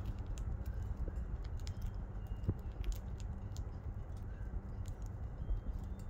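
Budgies pecking and cracking seed: a scatter of small, irregular clicks over a steady low background hum.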